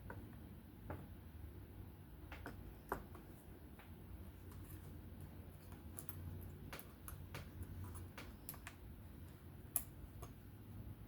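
Light, irregular clicks and taps of small folding-knife parts and tools being handled as the back spacer is lined up during reassembly, with two sharper clicks about three seconds in and near the end.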